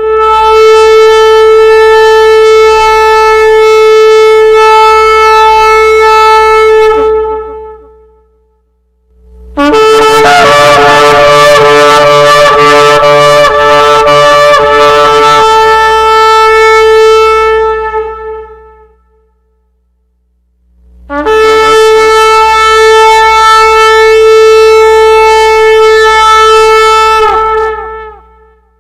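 Shofar sounded in three long, loud blasts on one steady note, with short pauses between them. The middle blast flutters and breaks rapidly for several seconds before steadying.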